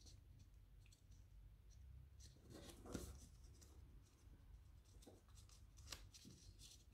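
Faint rustling and creasing of a small square of origami paper folded by hand on a table, with small soft crinkles about three and six seconds in.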